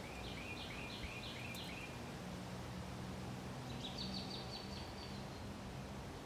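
A songbird singing two phrases. The first is about six repeated slurred whistled notes; a couple of seconds later comes a faster, higher run of about eight short notes.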